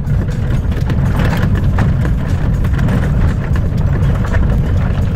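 Truck driving through dense brush, heard from inside the cab: a steady low rumble with many quick scrapes, snaps and knocks as branches drag along the body and windows.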